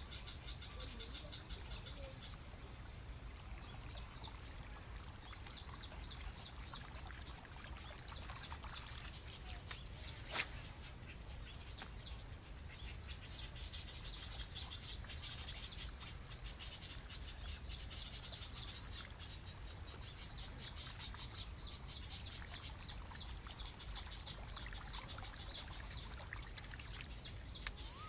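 Birds chirping in repeated short series of high calls, over a low steady rumble. A single sharp click about ten seconds in.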